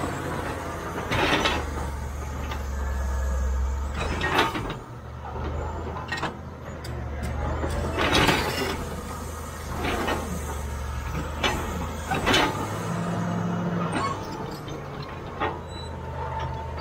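CAT D7G crawler bulldozer's six-cylinder diesel engine running under load, its low drone shifting in pitch as the load changes. Loud sharp metallic clanks and knocks come every three to four seconds as the machine's steel tracks and ripper work the rock and dirt.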